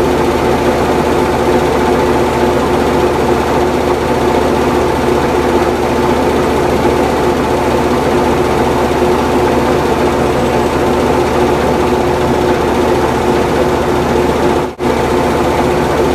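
Lathe running under a cut, a steady mechanical hum with several held tones. It drops out for an instant near the end.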